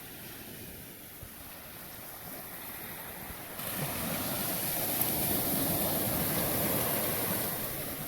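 Ocean surf washing on a beach, with wind buffeting the microphone; the wash swells louder about halfway through.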